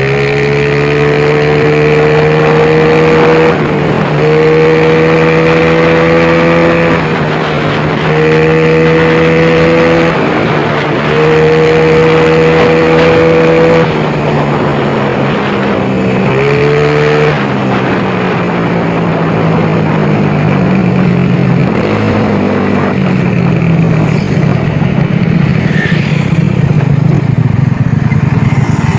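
Yamaha Mio scooter with a fresh 58.5 mm big-bore cylinder block, its single-cylinder engine and exhaust heard while riding. The engine pulls up under throttle in four or five spells of a few seconds each, easing off briefly between them, then runs lower and steadier near the end. The new engine is still being run in, so it is not revved hard.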